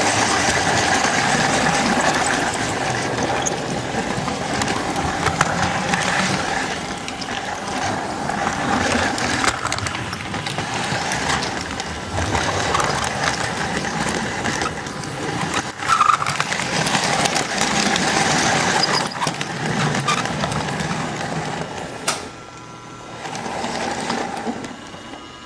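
S-gauge model train rolling along the track, heard close up from the flatcar riding on it: the small electric motor and gears of a Flyonel Docksider switcher running steadily, with wheel rumble and small clicks over the rail joints. The running noise dips for a moment near the end.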